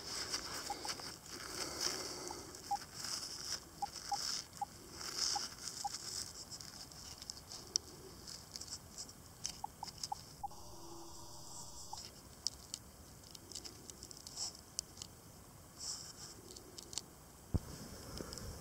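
Gloved fingers handling a small soil-caked enamel badge close to the microphone: irregular rustling, scratching and light crackling, with a few faint short beeps scattered through the first half.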